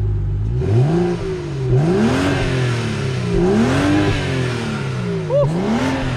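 BMW 335i's turbocharged 3.0-litre straight-six, heard at its single exhaust tip, revved four times from idle, each rev climbing and falling back. It runs on the stock exhaust with its large catalytic converter still in place, with sport mode and the exhaust valves open.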